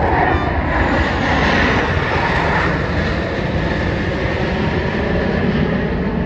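Jet engines of a formation of military display jets flying past: a loud, steady roar with a whine on top, a little stronger in the first few seconds.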